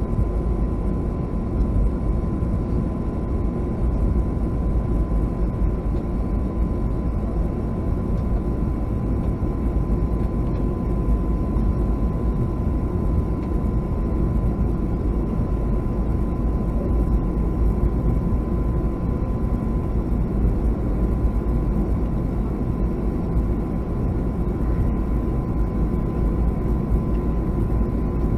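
Cabin noise of a Boeing 757-200 on the ground before takeoff: a steady low rumble with a constant high whine from its idling jet engines, not changing in level.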